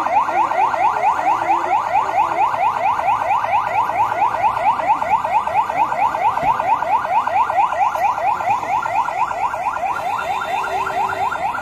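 Electronic police siren in a fast yelp pattern: quick rising sweeps repeated several times a second, steady and loud.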